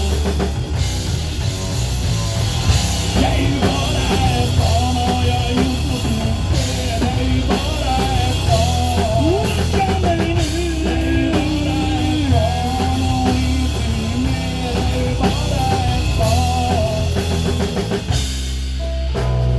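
Rock band playing: drum kit, bass and guitar, with a wavering melodic lead line on top. The full band drops back briefly near the end.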